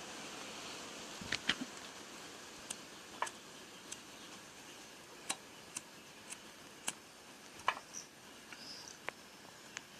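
Fire crackling under a kettle of sawdust being heated for pyrolysis: sparse, irregular sharp pops and clicks over a faint steady hiss.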